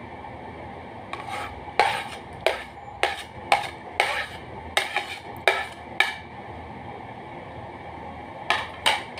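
Metal spoon tapping and scraping against a serving plate as banana slices in cream are scraped off onto custard: a run of sharp clinks for several seconds, a pause, then two more near the end.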